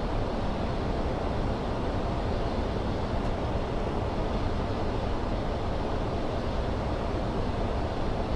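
Steady flight-deck noise of a Boeing 747-400 freighter in flight: an even rush of airflow and engine noise with no distinct tones.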